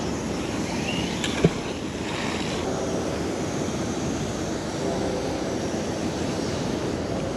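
Steady outdoor noise, a low rumble like wind on the microphone or distant traffic, with one sharp click about one and a half seconds in.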